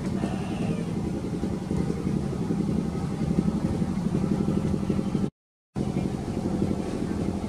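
An engine running steadily with a low, even rumble. The sound cuts out completely for about half a second a little after five seconds in, then comes back unchanged.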